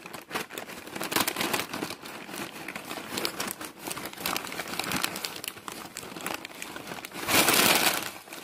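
A white takeout bag crinkling and rustling as plush toys are pushed and shuffled around inside it. It makes a steady run of crackly rustles, with a louder burst of rustling about seven seconds in.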